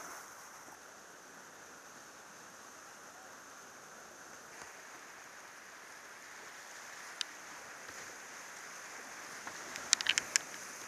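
Whitewater rapids rushing steadily around a kayak as it paddles down a river. A single sharp tap about two-thirds of the way through, then a quick run of about five sharp taps near the end as the boat drops into white water.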